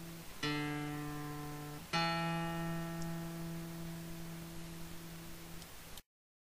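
A plucked string instrument closing a song: one pluck about half a second in, then another about two seconds in that rings on and slowly fades, before the sound cuts off shortly before the end.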